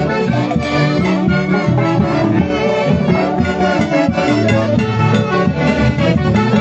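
Huaylarsh dance music played by a live band, with wind instruments carrying the melody over a steady beat.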